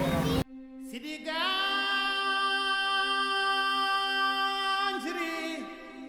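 A single voice sings one long held note over a steady low drone. The note slides up into place about a second in, holds steady for several seconds, then bends and drops away near the end. It is an edited-in music clip, clean of any background noise.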